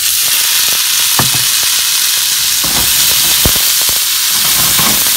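Loud sizzling in a hot oiled frying pan, starting suddenly as green peas are poured in among browned potato gnocchi, with scattered light knocks of a wooden spatula stirring against the pan.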